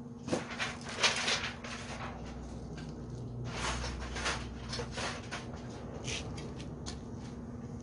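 Rustling and handling noises with a few short clicks and knocks, over a steady low hum.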